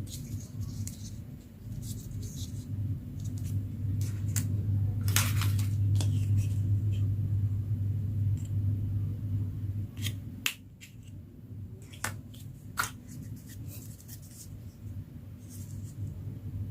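Hands unboxing toys: plastic packaging and parts handled with scattered sharp clicks and crinkles, over a steady low hum.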